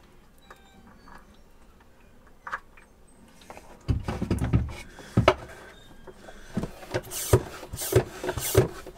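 Handling noise in a cramped engine compartment: a few faint clicks, then a heavy low thump about four seconds in, followed by knocks and scraping, and a run of sharp regular strokes about two a second near the end.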